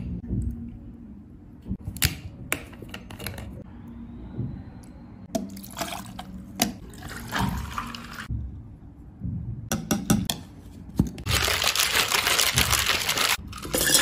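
Juices and tea poured one after another over ice cubes into a plastic shaker cup, with sharp clicks from a bottle cap being opened and containers being handled between pours. A louder, denser rush of sound comes in the last few seconds.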